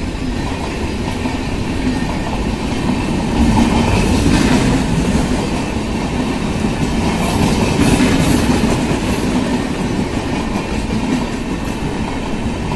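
A passing train's passenger coaches rumbling and clattering along the track: a loud, steady wheel-on-rail noise.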